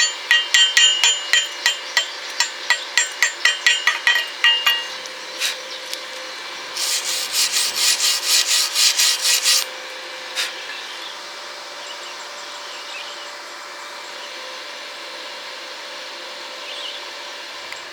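Steel being struck in quick, light blows, about three to four a second, each with a short metallic ring, as when slag is chipped off a fresh weld. About seven seconds in comes a burst of harsh scraping strokes, like a wire brush scrubbing the weld, and then only a faint steady hiss.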